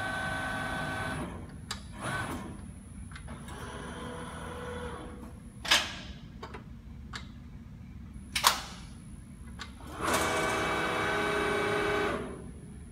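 Schroeder SPB 3200/3 hydraulic CNC folding machine working through a cycle: bursts of whining from its drives as the beams and back gauge move, a long one at the start and another near the end. Two sharp metallic clunks, the loudest sounds, come in the middle, about three seconds apart.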